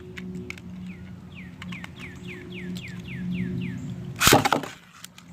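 Beyblade launcher pulled: a loud, sharp rip of about half a second near the end as the tops are launched. Before it, a quick run of short falling chirps, about four a second, over a steady low hum.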